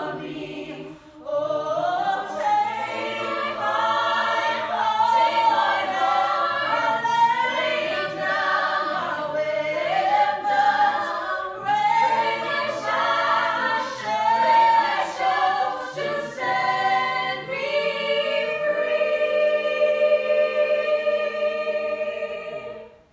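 Mixed-voice a cappella group singing in close harmony with no instruments, a low bass voice under the upper parts. It ends on a long held chord that all the voices cut off together.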